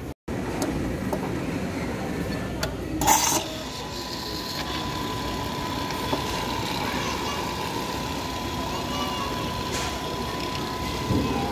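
Automatic coffee machine dispensing milk into a paper cup. A short hiss as it starts is followed by a steady whine and pouring for about eight seconds, stopping shortly before the end.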